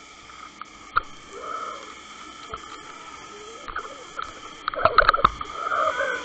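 Muffled underwater noise picked up by a camera in a waterproof housing on a drifting fluke rig: a steady hum with scattered knocks, and a cluster of louder clattering knocks about five seconds in.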